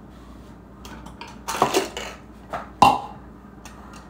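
Makeup brushes being picked up and handled, with a few short clicks and knocks of their handles. The loudest knock comes nearly three seconds in.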